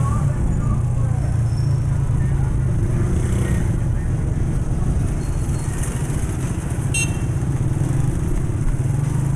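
Motorcycle engine running steadily while riding at low speed, a continuous low drone. A brief high-pitched chirp comes about seven seconds in.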